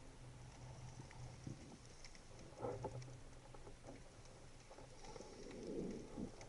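Faint underwater ambience: a low steady hum with scattered small crackling clicks and a few muffled swishes of water.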